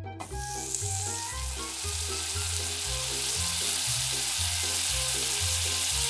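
Food sizzling as it starts to fry in oil in a tiny miniature pan, a steady hiss that builds up over the first couple of seconds, with background music.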